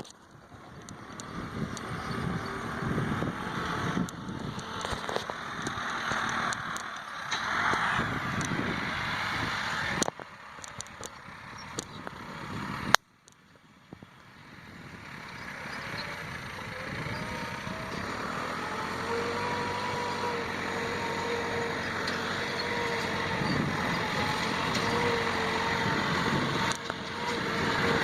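A tractor engine running while ploughing. The sound cuts off sharply twice in the first half, then settles into a steadier engine note that slowly grows louder.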